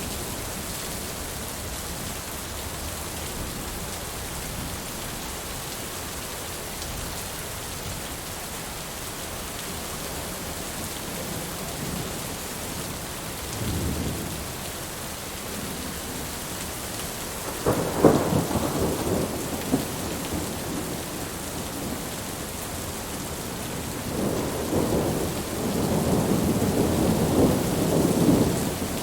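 Steady rain falling, with rolls of thunder: a short rumble about halfway through, a sharper crack and rumble a little later, and a longer rumble near the end.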